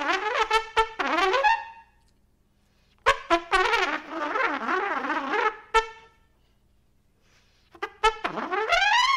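Unaccompanied trumpet playing jazz phrases with bent, gliding pitches, in three bursts separated by pauses of about a second or more.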